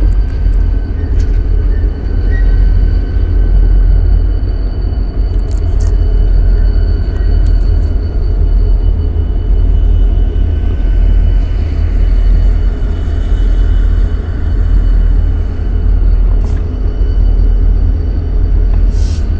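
BNSF diesel freight locomotives and rolling railcars passing close by: a steady heavy rumble with a faint whine, broken by a few brief sharp clicks.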